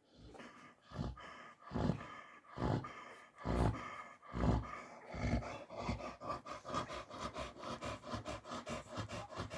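American Staffordshire terrier snoring in her sleep, with heavy breaths about once a second; after about five seconds the breathing turns quicker and shallower, about three breaths a second, like panting.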